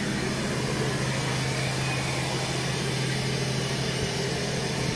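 Large truck-mounted sound system playing a steady, even hiss of test noise while the rig is being tuned on an RTA (real-time analyzer), over a steady low hum.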